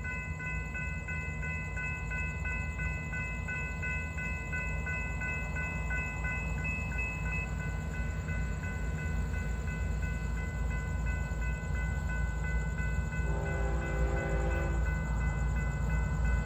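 Grade crossing bell ringing steadily over the low rumble of an approaching Florida East Coast Railway train, which slowly grows louder. About thirteen seconds in, the train's horn gives one short blast of about a second and a half.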